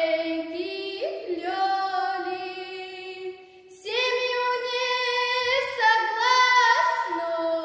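A girl singing a Russian folk song solo and unaccompanied, in folk vocal style, on long held notes. A little past three seconds in she pauses for breath, then starts a new phrase on a higher note.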